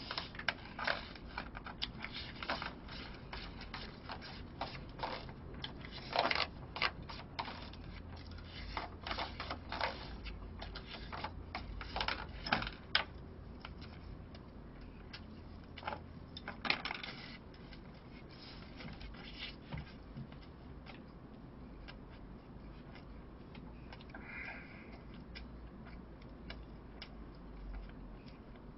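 Eating sounds: a plastic spoon and then chopsticks clicking and scraping against a plastic takeout food container, many small clicks at first and sparser in the last third.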